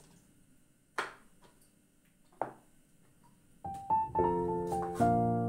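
Two knife cuts striking a cutting board, about a second and a half apart, then piano music comes in a little past halfway and plays on, the loudest sound.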